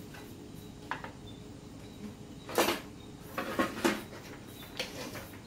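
A few separate knocks and clanks of a metal cooking pot and ladle being handled, the loudest about two and a half seconds in and a quick cluster about a second later.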